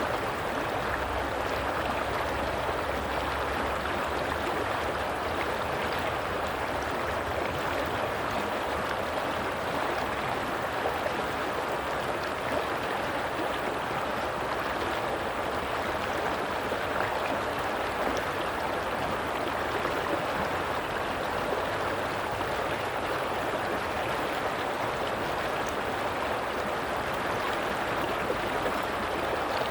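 Stream water flowing and gurgling steadily over rocks.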